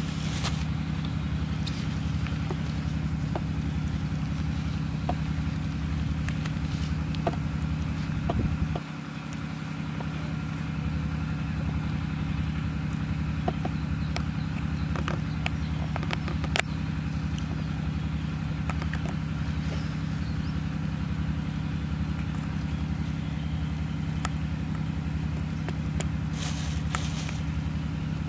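A steady low engine-like hum with a regular low throb, dropping away briefly about nine seconds in and then coming back, with scattered faint clicks over it.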